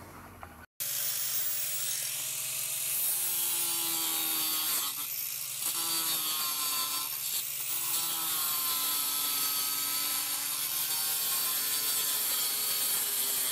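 Electric angle grinder with a thin disc trimming the edge of a cured fiberglass laminate flange: a steady whine over a gritty grinding hiss, the pitch sagging and recovering as the disc bites into the glass, easing briefly twice midway.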